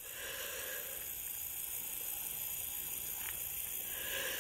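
Quiet outdoor ambience: a faint, steady hiss with a light low rumble and no distinct event, broken only by one faint tick about three seconds in.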